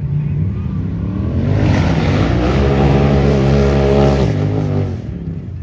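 Unlimited-class race UTV engine under hard throttle: the pitch climbs, holds high at its loudest, then drops off as the throttle comes off about four seconds in.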